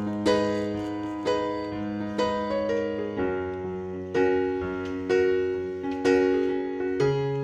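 Background music: slow piano or electric-piano notes and chords, a new one struck about once a second and each fading away.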